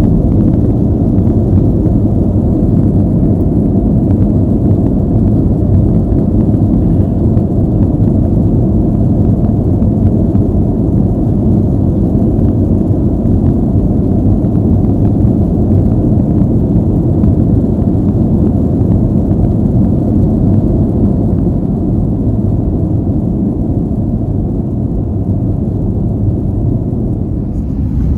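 Jet airliner cabin noise: a loud, steady low rumble that eases a little near the end.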